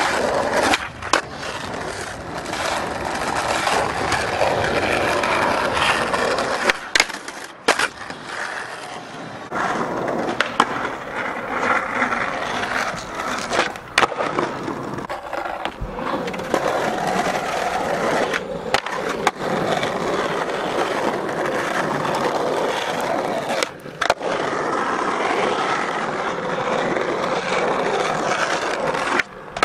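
Skateboard wheels rolling over concrete and paving stones, broken by sharp pops and landing slaps of the board as tricks are done, a dozen or so hits in all.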